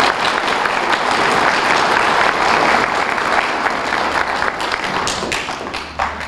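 A large audience applauding, the clapping thinning out to a few scattered claps near the end.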